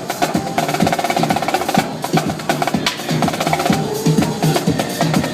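Live drumming over electronic dance music: fast drum-corps-style stick patterns on drums, with a quick even run of strokes in the first couple of seconds, then regular low hits.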